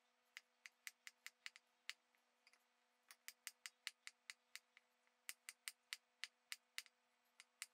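Kitchen knife slicing cucumber on a wooden cutting board: light, crisp taps of the blade hitting the board, about five a second, in three quick runs with short pauses between them and a fourth run starting near the end.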